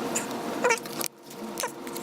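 A cat meowing: two short, high cries about a second apart, with a sharp click between them.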